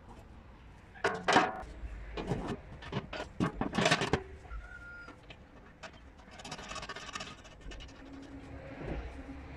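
Metal handling noises as a stainless-steel washing-machine drum back is set into a welded steel frame: a run of sharp knocks and clanks between about one and four seconds in, then a scraping rustle a few seconds later.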